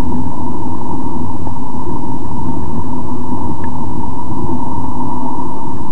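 Car driving at road speed: a loud, steady rumble of engine and tyre noise heard inside the cabin.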